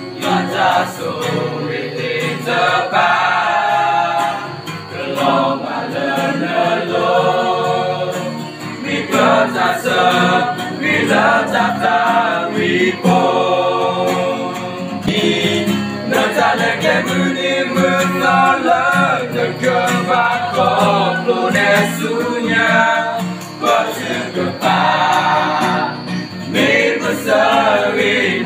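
A group of young men singing a song together in chorus, accompanied by a strummed acoustic guitar.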